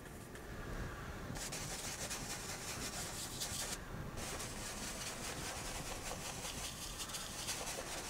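Paintbrush scrubbing oil paint onto a canvas in quick, repeated strokes, starting about a second and a half in, with a short pause near the middle.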